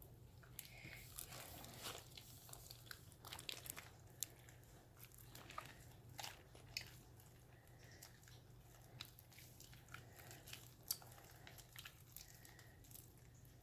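Floam slime being kneaded by hand: faint, irregular crackling and squishing as the sticky slime with its foam beads is pressed and pulled while the activator is worked in.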